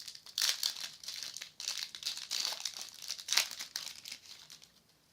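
Plastic Yu-Gi-Oh booster pack wrapper crinkling and being torn open, a run of irregular sharp crackles that stops shortly before the end.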